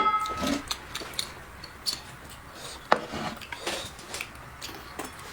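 Tableware sounds during a meal: a sharp, ringing clink of a utensil against a bowl at the start, then scattered light clicks and taps of chopsticks and spoons on dishes, one sharper click about three seconds in.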